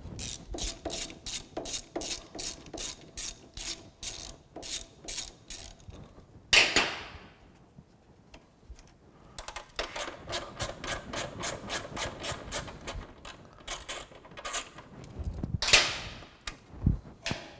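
Ratchet wrench clicking in quick runs, about three clicks a second, as the brake hose's fitting is undone at the rear brake caliper. There are two louder scraping rattles, one midway and one near the end.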